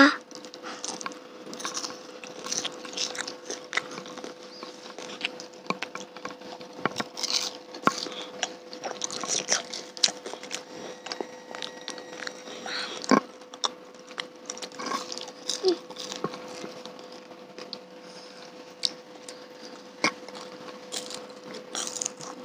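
People chewing cilok, chewy tapioca balls, close to a handheld microphone: scattered small wet mouth clicks and smacks. A faint steady hum runs underneath.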